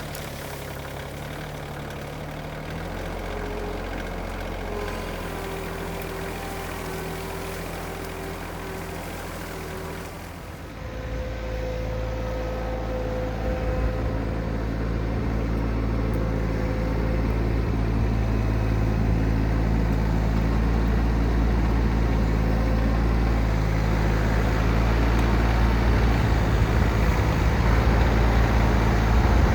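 An engine running steadily with a low hum; it gets louder and deeper about ten seconds in and keeps building slowly after that.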